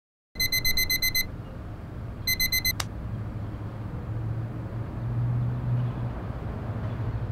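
Smartphone alarm going off in two short bursts of rapid high electronic beeps, about nine a second, cut off by a click just under three seconds in as it is switched off. A steady low hum carries on afterwards.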